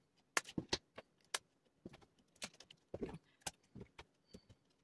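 Metal planner discs clicking and clinking as they are picked from a pile and pressed one by one onto the punched edge of a discbound planner cover: a string of irregular sharp clicks.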